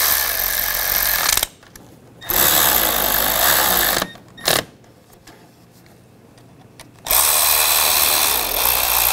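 Cordless Milwaukee ratchet running in three bursts, each one to three seconds long, driving bolts down tight, with a short blip about four and a half seconds in.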